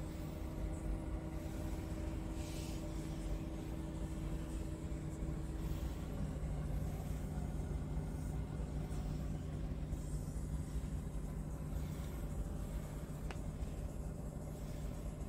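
Scania R truck's diesel engine idling steadily, heard from inside the cab as a low, even hum; one of its tones steps down slightly about six seconds in.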